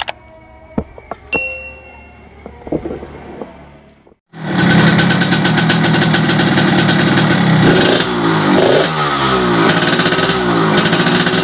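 A few clicks and a short ringing tone. Then, after a brief cut, a Yamaha RX-King's two-stroke single-cylinder engine runs loud through its freshly reworked ("bobok") exhaust, revved up repeatedly from about eight seconds in. This is the crisp, rattly "garing ngorok" exhaust note the muffler was reworked to give.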